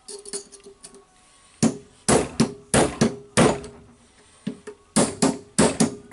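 Steel hand hammer striking the rotary hammer's tool holder in a vise to drive out its retaining spring ring. A few light metal clinks come first, then two quick runs of about five or six sharp blows, each with a short metallic ring.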